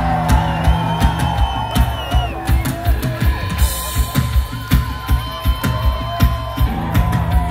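Band music with a drum kit keeping a steady beat, its kick drum hitting about twice a second.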